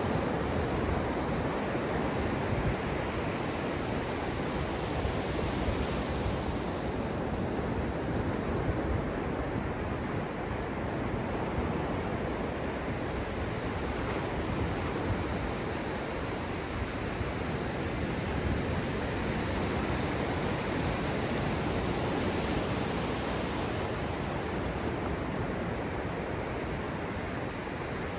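Ocean surf washing up a sandy beach close by: a steady, continuous wash of small breaking waves and foam running up the shore.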